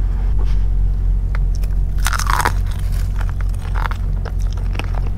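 Close-up biting and chewing of crispy fried chicken, the breading crunching and crackling in short bursts, heaviest about two seconds in, over a steady low hum.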